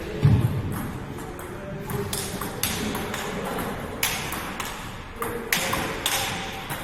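Table tennis balls clicking sharply off bats and table in irregular rallies, about half a dozen hits. A dull thump comes just after the start.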